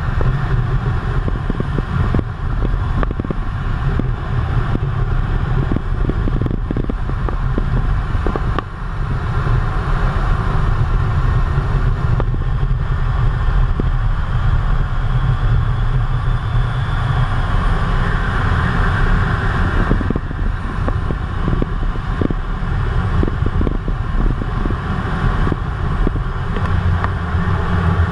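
Steady loud cockpit noise of a Eurofighter Typhoon in low-level flight: a deep engine rumble mixed with air rushing over the canopy, with scattered short knocks and rattles. Heard from inside the cockpit.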